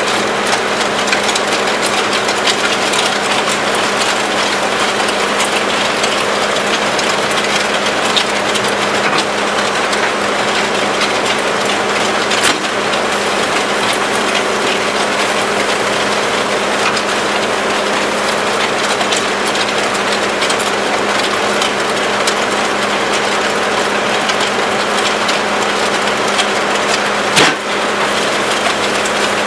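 Compact track loader's engine running steadily while the hydraulically driven Danuser Mega Mixer auger churns a batch of concrete in the bucket, gravel grinding and scraping against the steel. Two brief knocks, about twelve seconds in and near the end.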